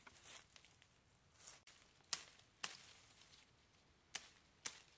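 Light rustling of dry forest vegetation with four short, sharp crackles: two about two seconds in and two more near the end.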